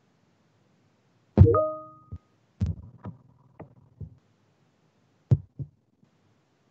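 A sudden short electronic tone with a sharp start that dies away within about half a second. It is followed by a scattered series of about seven short low knocks and clicks over the next four seconds, heard through a live-stream audio feed that is breaking up.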